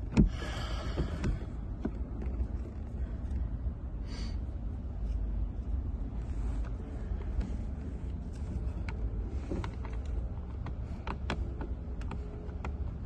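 Scattered small clicks and knocks of a replacement cabin blower motor being handled and lined up into place under a car's dashboard, with a short rustle near the start, over a low steady rumble.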